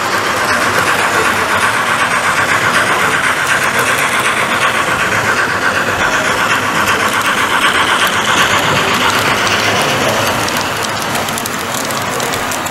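Recorded diesel engine sound from a DCC sound decoder in an OO gauge model locomotive, running steadily through the model's small speaker.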